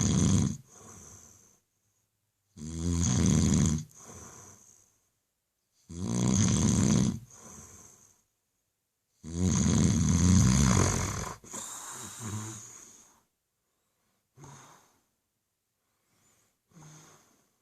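A man snoring in his sleep: four loud snores about three seconds apart, each followed by a softer second breath, then two short faint breaths near the end.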